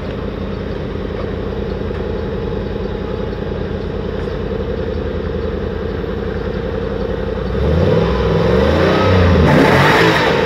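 GAZelle van's 4.3-litre V8 heard at its twin exhaust tips, idling steadily, then revved up and down a few times near the end, louder with each blip.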